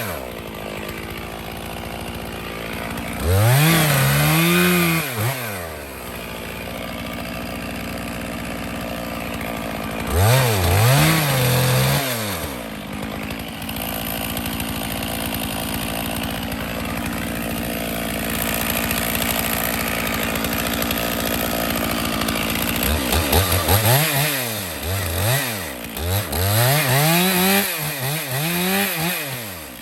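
Two-stroke chainsaw running at a steady idle, revved up and back down briefly several times: once about three seconds in, again around ten seconds, then several quick revs in a row near the end.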